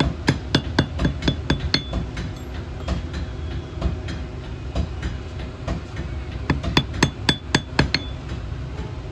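Hand hammer striking a small iron ring on the horn of an anvil, shaping it. Quick runs of ringing metal-on-metal strikes, about four a second, come at the start and again near the end, with a few scattered taps between.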